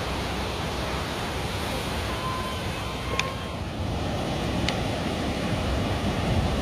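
Wind buffeting the microphone over the steady wash of surf on a sandy beach, with two brief sharp clicks about three and four and a half seconds in.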